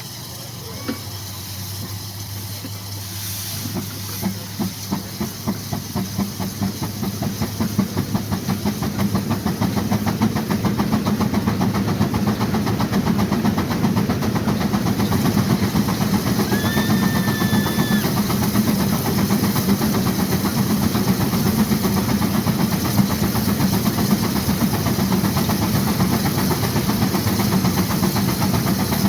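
Exhaust of a 1916 Case 40 HP steam traction engine chuffing, the beats coming faster and louder over the first several seconds as the throttle opens, then settling into a rapid steady beat as the engine works hard against a Baker fan, the hard draught that throws sparks from the stack.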